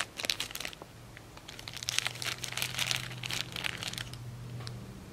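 Plastic wrapping on a small toy crinkling as a squirrel monkey handles and picks at it to unwrap it, in a short spell at the start and a longer one from about a second and a half in.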